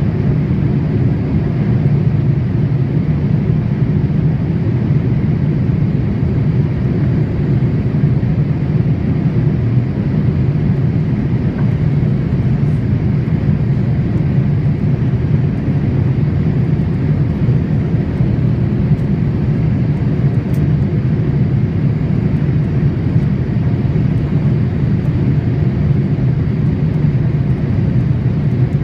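Steady low roar of engines and airflow inside the cabin of a Boeing 787 airliner in flight.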